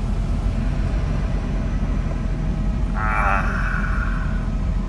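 Air rushing steadily out of a Ford Mustang S197's passenger dash vent, driven by a newly fitted interior blower motor at a high fan setting. There is no squeal: the new motor runs quietly. A short higher sound breaks in about three seconds in.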